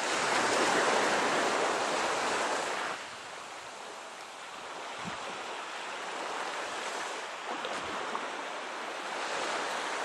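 Steady rush of surf and wind on a beach, louder for the first three seconds and then settling lower.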